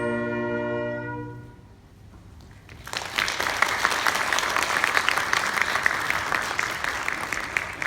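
A school wind band holds its final chord, which fades out about a second and a half in. After a short pause the audience breaks into applause.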